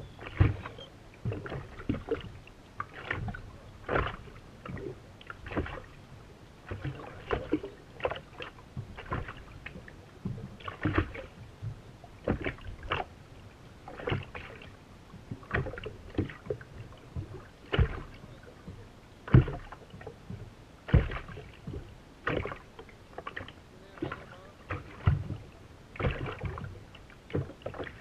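Water slapping against the hull of a racing powerboat moving slowly on choppy water: irregular sharp knocks, about one or two a second, over a faint background.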